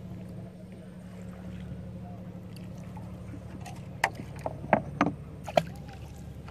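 Gill net being paid out over the side of a wooden canoe, with a few sharp knocks about four to five and a half seconds in as the net and floats go out against the hull, over a steady low hum.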